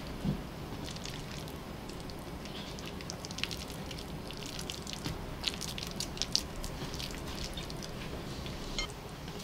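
Soft sticky clicks and squelches of oiled dough being coiled and pressed by hand, the ticks coming thickest in the middle, over a steady low hum.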